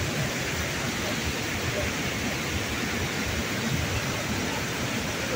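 Steady rushing of a river's rapids and waterfall, an even roar of white water with no breaks.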